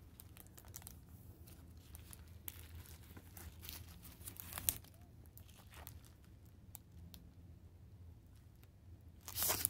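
Clear plastic sleeves around large photo prints crinkling and rustling as the prints are handled and swapped, in scattered soft rustles that grow louder from about two and a half to five seconds in and again near the end.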